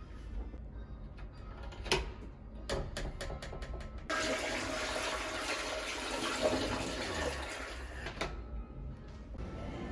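A flush-valve toilet flushing: a dense rush of water for about four seconds that cuts off suddenly. A few sharp clicks come before it.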